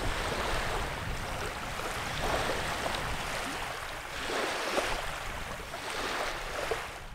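Small waves lapping on a reservoir, a steady wash that swells and eases every couple of seconds, with low wind rumble on the microphone.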